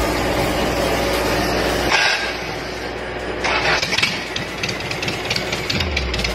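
Freshly overhauled Isuzu 4BE1 four-cylinder diesel engine being started for its test run: the starter cranks it and it catches, and from about halfway through it runs with a rapid, even diesel clatter.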